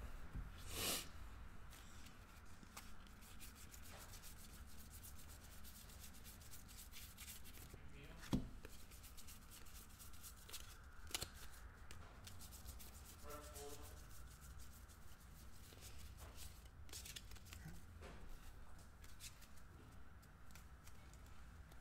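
Faint rubbing and rustling of trading cards being handled and slid against one another, with scattered light ticks and one louder tap about eight seconds in.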